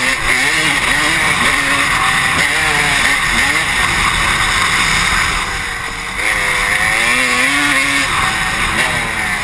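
Honda CR250 two-stroke motocross bike being ridden hard, heard from the rider's helmet camera. The engine revs repeatedly rise and fall through the gears, ease off about six seconds in for the bend, then climb again.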